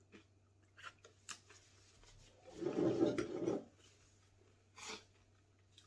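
A person blowing their nose into a paper tissue, one blow of about a second midway, with a few light clicks of spoons against bowls around it.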